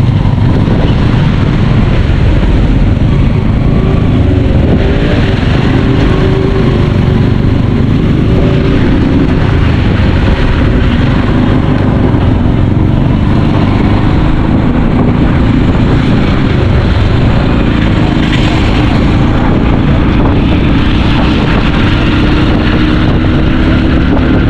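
Steady engine and road noise of a moving vehicle, heard from on board, with wind buffeting the microphone; a faint engine hum shifts slowly in pitch.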